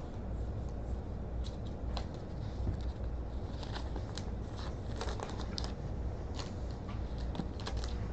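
Crinkling and tearing of a foil trading-card pack wrapper as it is opened, with irregular small clicks and rustles of the cards being handled over a steady low hum.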